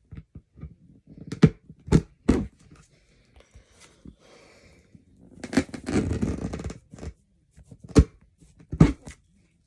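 A tightly taped package being handled and pried at: several sharp knocks, and in the middle about a second and a half of rough tearing and rustling as the wrapping is pulled at.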